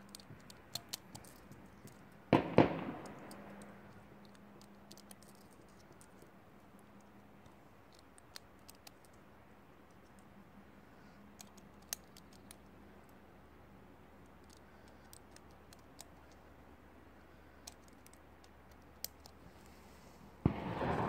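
Celebratory gunfire into the air: one loud double bang about two seconds in that echoes away over about a second, with faint, scattered distant shots cracking through the rest. Near the end a louder stretch of sound begins.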